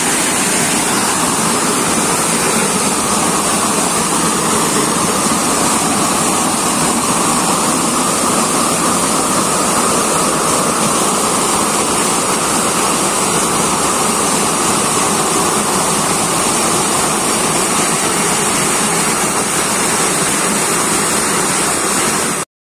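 Loud, steady rush of creek water pouring over rocks. It cuts off abruptly just before the end.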